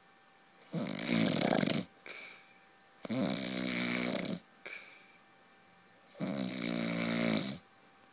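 A man snoring loudly in his sleep: three long, buzzing snores about three seconds apart, the first two each followed by a short, softer breath.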